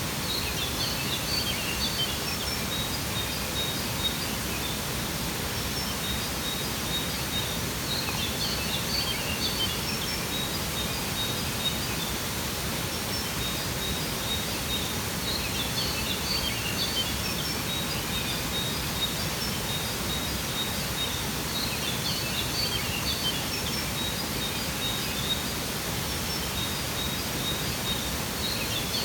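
Waterfall rushing steadily, with birds chirping in short high clusters that come and go every several seconds.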